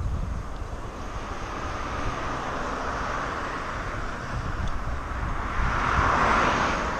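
A car driving past on the road beside the bike path, its tyre and engine noise swelling to a peak near the end and then fading. Wind rumbles on the bicycle-mounted microphone underneath.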